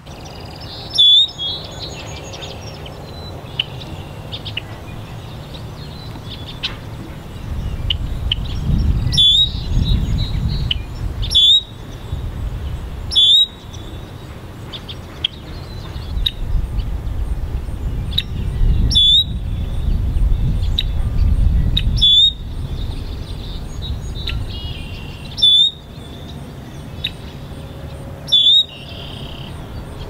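Red-winged blackbird giving eight loud, short calls spaced a few seconds apart, with fainter bird chirps throughout and a low rumble in the middle stretch.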